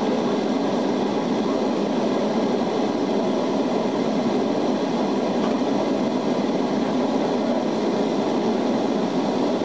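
Steady in-cabin noise of a Lockheed L-188 Electra in cruise: its four Allison 501 turboprops and the airflow give a constant, even drone with faint steady whining tones above it.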